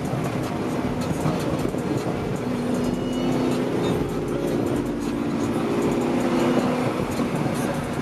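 Car driving at steady speed: engine drone and road noise heard from inside the cabin.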